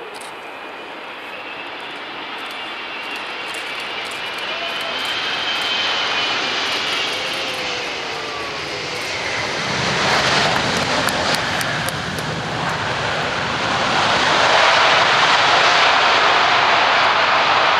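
Airbus A380 airliner landing: its four jet engines whine on the final approach, then after touchdown the engine noise swells into a loud, steady rush that is loudest in the last few seconds as the airliner rolls out on the runway.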